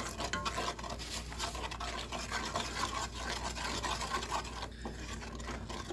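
A spoon stirring a thick, sticky peanut butter mixture around a large non-stick pot, with repeated uneven scraping strokes.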